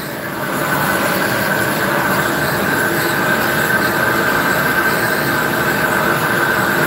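Very loud handheld gas torch running steadily on murrini squares on a ceramic plate: an even rushing noise with a thin steady whistle in it, swelling slightly in the first half-second and then holding level. The flame is heating the centre of the murrini so it matches the hotter edges and the squares fuse evenly into a sheet.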